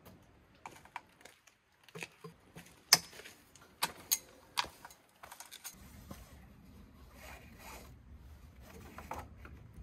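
Sharp metallic clicks and clanks as a tall metal antenna mast pole is handled and set up, the loudest about three seconds in. After about six seconds a faint steady low rumble sets in, with a few lighter knocks over it.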